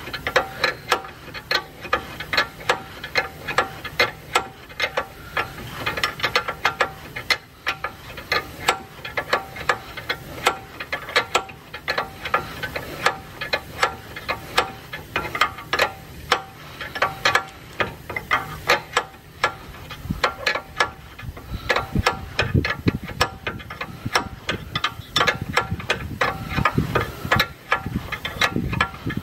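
Ratchet spanner clicking over and over, a few clicks a second, as it runs the new 22 mm nut down onto the lower control arm's ball joint. The stud is holding in the hub so far rather than spinning with the nut.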